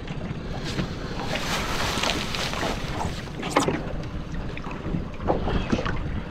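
Wind buffeting the microphone and small waves slapping against an aluminium skiff's hull as it drifts, with a few brief knocks or splashes.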